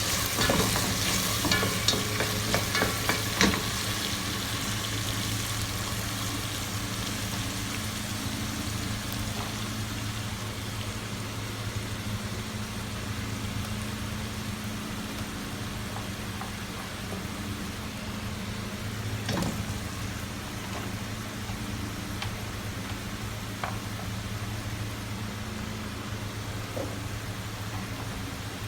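Food frying in a pan with a steady sizzle. It is stirred with a few scraping strokes in the first few seconds, then sizzles on with only an occasional scrape.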